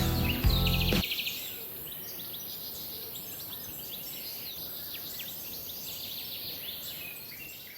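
Background music stops abruptly about a second in. Birds chirping follow, with many short, high calls over a faint hiss, fading out near the end.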